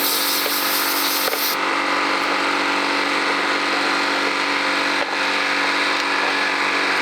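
An engine running steadily with an even hum, with a high hiss over it that stops about a second and a half in.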